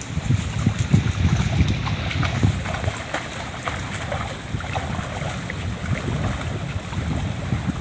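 Wind buffeting the microphone in an uneven low rumble, with light splashing of shallow water as someone wades through it.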